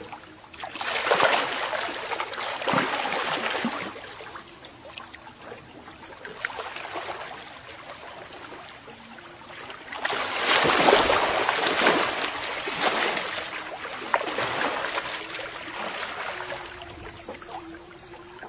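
Water splashing and sloshing beside a small boat as a hooked sevengill shark moves at the surface. Two louder spells of splashing, about a second in and again about ten seconds in, over a softer steady wash of water.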